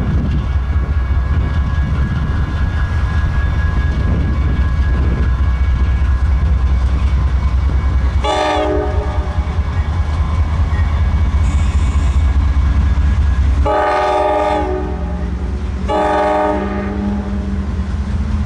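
A train running by with a steady low rumble, its locomotive horn sounding three blasts: one short blast about 8 seconds in, a longer one about 14 seconds in, and another short one about 16 seconds in.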